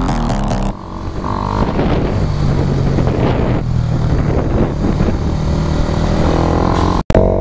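Suzuki Raider R150's single-cylinder engine running while the bike is ridden along a road, heard from the bike with rushing road and wind noise. A burst of electronic music cuts off under a second in.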